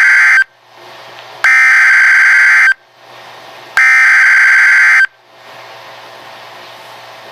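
NOAA Weather Radio Emergency Alert System SAME header: loud bursts of buzzing digital data tones, each about a second and a half long with about a second between them. One burst ends just at the start and two more follow; the header carries the flash flood warning's coded alert data. After the last burst comes a steady, much quieter radio hiss.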